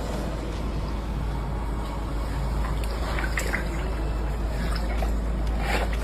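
Floodwater rushing through the streets in a steady, even roar of water.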